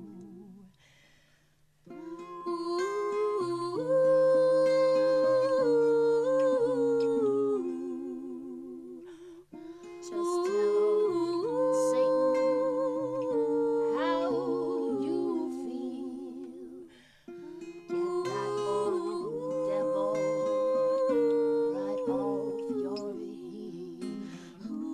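Close-harmony vocal group humming wordless chords, several voices held together with vibrato over a plucked string accompaniment. The humming comes in three long phrases with short breaks between them.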